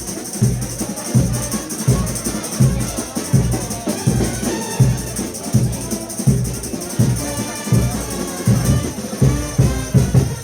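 Frevo street orchestra playing: brass over a steady, driving drum beat.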